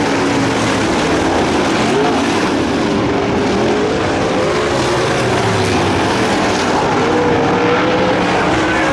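Several dirt late model race cars' V8 engines running hard around a dirt oval, their pitch rising and falling as the cars brake into and power out of the turns.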